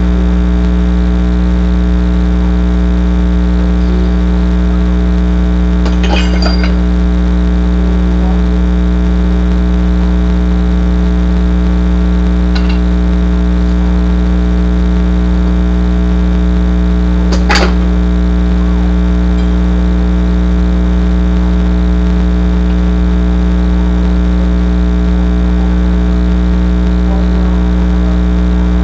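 Loud steady low electrical hum with many overtones. Over it come a few sharp knocks of wooden breaking boards, the clearest about six seconds in and again at about eighteen seconds, with a fainter one in between.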